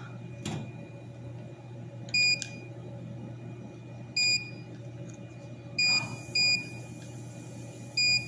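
Five short, high electronic beeps, about two seconds apart with two close together past the middle, over the steady low hum of a running CNC laser cutting machine.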